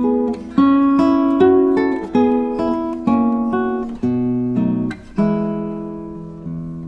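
Background music: an acoustic guitar picking notes and chords roughly every half second. About five seconds in, one chord is left to ring and slowly fade.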